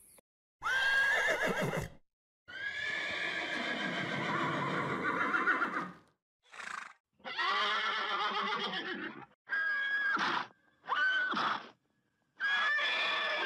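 Horses neighing: a series of about seven whinnies with short silent gaps between them, one of them a long drawn-out call.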